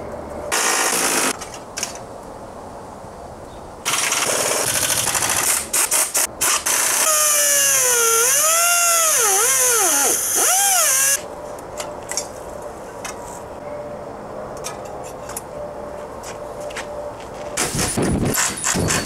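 A power tool run in several short spells, then a loud whine of about four seconds whose pitch sags and recovers as the tool is loaded, cutting off about eleven seconds in; another short run near the end.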